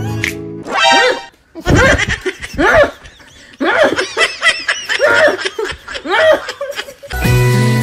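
Laughing in many short bursts with brief pauses between them; music plays for a moment at the start and comes back near the end.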